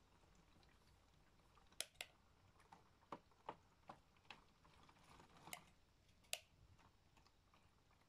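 Miele W1 toy washing machine turning its drum slowly with water inside, giving about nine sharp, irregular small clicks over a faint background. The clicks come in the middle of the stretch, and the loudest are one about two seconds in and one about six seconds in.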